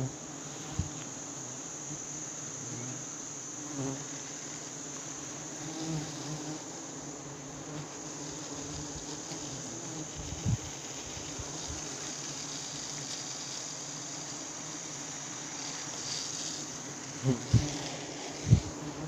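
A swarm of giant honeybees (Apis dorsata) buzzing steadily around their open combs, over a steady high-pitched insect drone. A few dull thumps come about halfway through and near the end.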